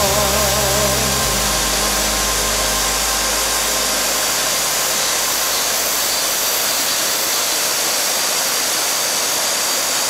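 Steady rushing of a mountain valley stream, an even hiss without pitch, with the last low notes of a song's accompaniment fading out about a second in.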